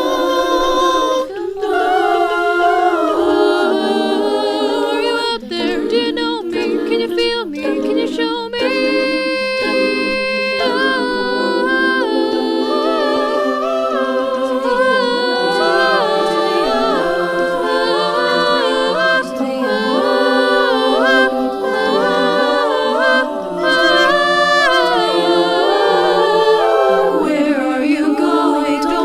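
Small group of voices singing a cappella in harmony, several parts moving together with vibrato and held chords.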